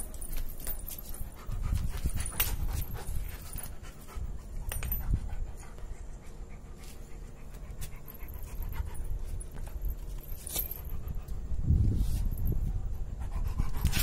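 German Shepherd panting, with a few sharp clicks.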